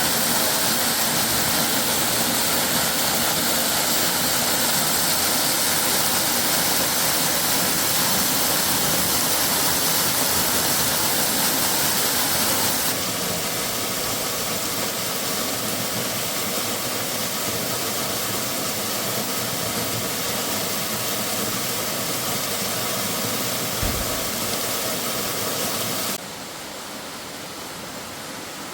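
Waterfall: a steady rush of falling water. It drops abruptly to a quieter level about 13 seconds in and again near the end.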